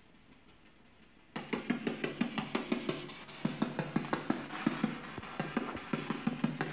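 Spirit box played through a small portable speaker, sweeping rapidly through radio stations: fast choppy bursts of radio sound that start suddenly about a second and a half in.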